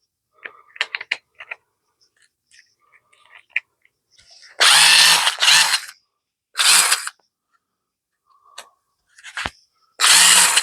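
Cordless screwdriver with a barbecue blower attachment fitted, its motor run in short bursts: two quick bursts about five seconds in, another shortly after, and a last one near the end, each a low motor hum under a hiss of air. A few light clicks and knocks come first as the attachment is handled.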